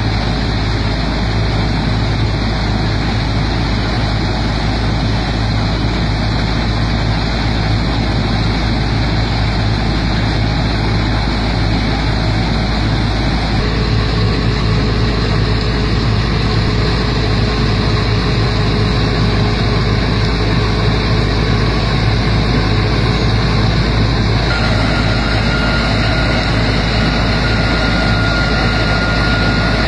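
Punni combine harvester running steadily as it cuts and threshes standing wheat, a dense mechanical drone from engine and threshing gear. A thin steady whine joins in near the end.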